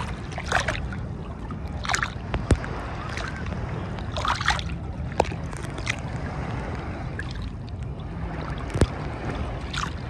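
Sea water lapping and splashing against a phone held right at the surface, over a steady low rumble, with about eight short sharp splashes scattered through.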